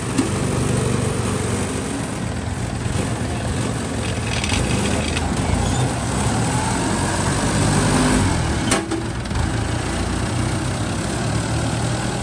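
Rice combine harvester's engine running steadily, with a single sharp knock about nine seconds in.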